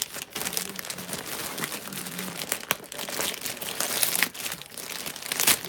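Packaging being handled and unwrapped: steady crinkling and rustling with quick crackles and a little tearing as items come out of a subscription box.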